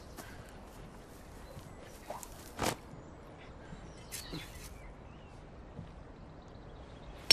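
Quiet outdoor background with a few soft thuds and rustles as a mooring pin and hammer are handled on the towpath. Right at the end, a hammer strikes the steel mooring pin with a loud, ringing clang.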